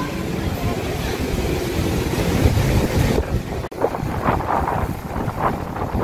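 Strong typhoon wind buffeting the microphone: a rough low rumble with hiss. A little past three seconds the sound cuts, and the wind goes on in separate gusts.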